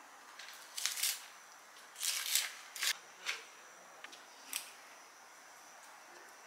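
Handling of a round cardboard box of foil-wrapped processed-cheese wedges: a run of about six short, crisp crinkles and rustles in the first five seconds, then quiet.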